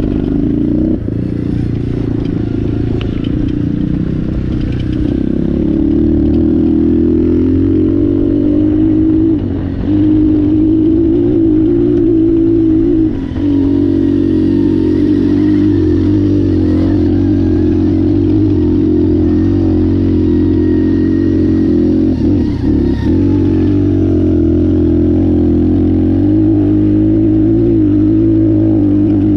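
2019 Apollo 250RX dirt bike's engine running under throttle on a ride, its pitch rising and falling with the throttle. The sound dips briefly about ten and thirteen seconds in, and again about two-thirds of the way through.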